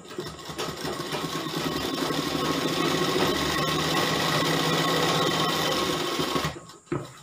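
Sewing machine stitching a seam in fabric along a marked line: it speeds up over the first second or so, runs steadily at a fast needle rate, and stops about six and a half seconds in, followed by a couple of clicks.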